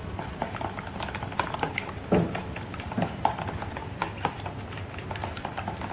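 A wooden stirring stick knocking and scraping against the sides of a plastic tub while stirring catalysed fiberglass resin, in irregular clicks a few times a second. The stirring mixes the hardener through the resin so it sets evenly.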